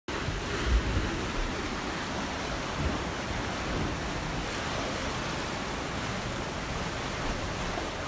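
Ocean surf: a steady rushing hiss of waves washing on a shore, with a few brief low thumps in the first three seconds.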